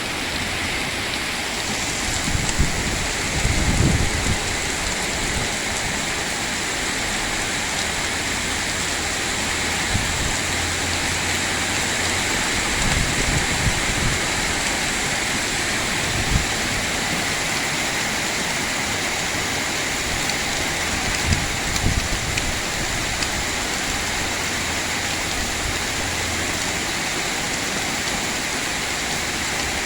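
Heavy rain pouring steadily, an even hiss of rainfall, with occasional low thumps of strong wind gusts hitting the microphone.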